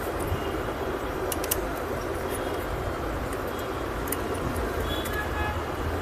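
Steady rumbling background noise with a low hum, and a few faint clicks about a second and a half in and again near four seconds.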